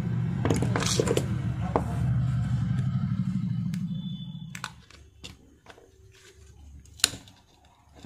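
A thin blade prying the plastic camera-module cover off a Realme C35 phone: small clicks and scrapes, then a sharp snap about seven seconds in as the cover comes loose. A low steady rumble runs through the first half and fades out.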